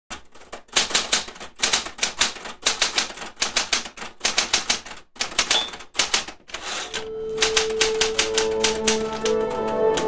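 Bursts of rapid mechanical clicking with short pauses between them, and a brief ring about five and a half seconds in. About seven seconds in, music with held notes comes in.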